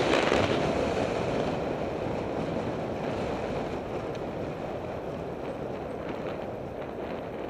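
Wind rushing over an action camera's microphone at speed, with road noise underneath, fading gradually as the speed drops after the descent.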